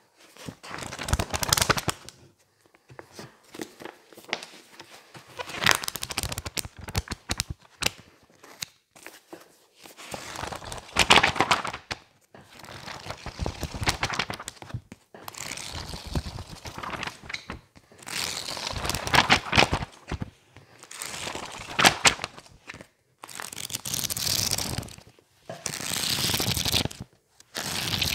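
Pages of a thick softcover textbook being riffled and flipped fast by hand: repeated bursts of papery flutter and crackle, each a second or two long, with short gaps between.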